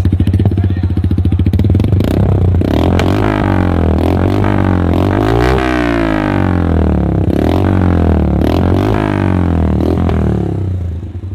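A motorcycle engine running through an aftermarket Akrapovic-style slip-on silencer with its dB killer baffle removed. It idles, then is revved up and let back down several times over a few seconds, then settles back to idle near the end.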